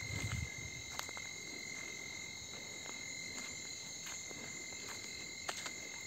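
Steady night chorus of crickets and other insects, several thin high tones held without a break, with a few soft footsteps on a dirt road.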